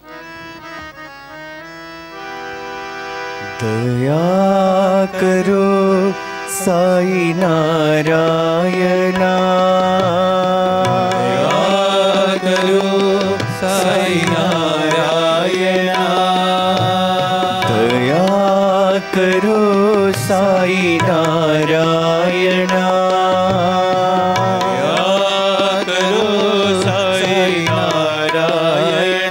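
Indian devotional music, the opening of a bhajan with no words yet. A held chord sounds quietly at first. About three and a half seconds in, the full music comes in: a steady drone under a gliding melody, with tabla.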